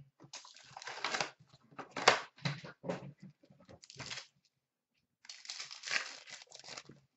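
Hockey card packs being handled and torn open: wrappers crinkling and tearing in irregular bursts, with a short break a little past four seconds in.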